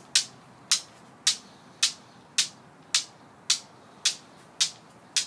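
Homemade Newton's cradle of 1½-inch chrome steel ball bearings clacking: ten sharp metal clicks with a brief ring, at a steady rhythm of about two a second as the end balls swing and strike.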